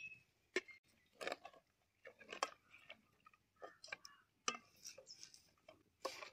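Long-handled ladle scraping and tapping in a metal bowl of rice flour as it is stirred and scooped: faint, short scrapes and knocks at irregular intervals.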